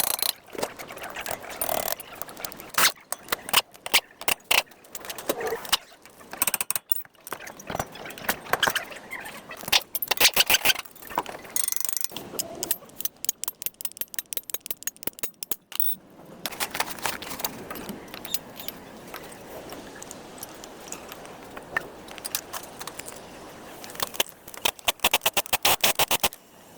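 Metal hand-tool work on a car's front wheel hub during a wheel bearing replacement: scattered clicks and metal knocks, broken by several quick runs of ratchet-like clicking.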